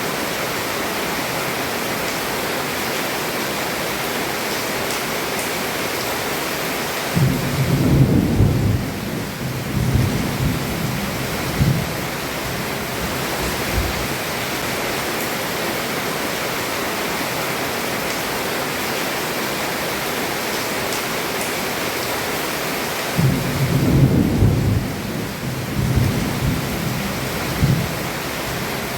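Heavy rain falling steadily on a roof, an even hiss, with two rolls of thunder rumbling low, the first about seven seconds in and the second about twenty-three seconds in, each lasting around five seconds.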